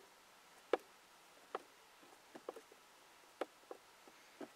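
Short, sharp clicks at an uneven pace, about one every second with smaller ticks between, as a screwdriver is turned by hand to drive a 1-inch #8 Robertson screw through the armrest hinge into its plastic anchor.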